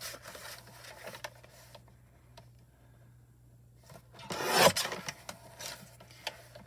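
A paper trimmer's blade sliding through a cardstock panel in one swish of about half a second, a little after the middle, after some light clicks of the paper being positioned. A steady low hum runs underneath.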